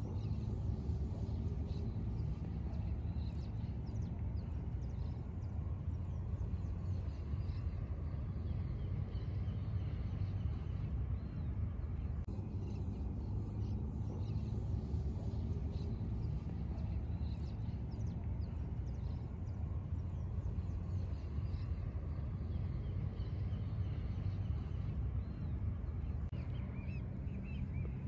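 Outdoor park ambience: a steady low rumble with faint, scattered bird chirps over it.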